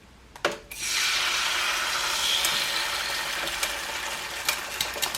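A couple of sharp taps as an egg is cracked, then the raw egg hits the hot oiled plate of a sandwich press. A loud oil sizzle sets in suddenly under a second in and slowly eases, with scattered pops and crackles.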